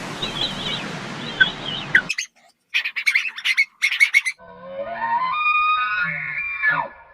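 Small bird chirps over a steady noisy background. After an abrupt cut come a run of short harsh squawk-like bursts, then a pitched tone that steps upward in pitch over the last few seconds.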